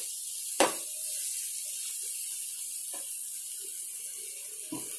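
Onion-tomato masala sizzling steadily in oil in a nonstick frying pan. A spatula knocks sharply against the pan about half a second in, and taps faintly twice more later.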